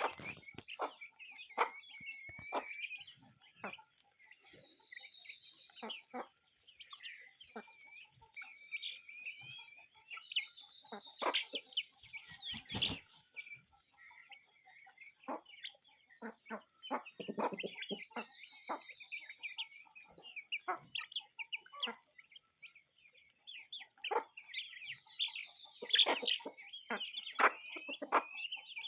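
A flock of chickens clucking and calling, many short overlapping calls throughout.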